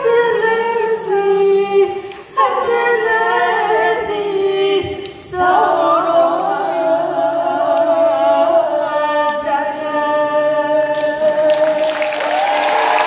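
Choir singing a slow closing passage in harmony with little instrumental backing, in three phrases, the last a long held note. Audience applause and cheering break in near the end.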